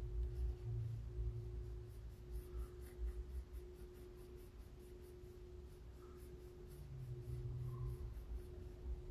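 Faint, repeated scratching strokes of a tool rubbing on a circuit board, over a steady low hum from bench equipment.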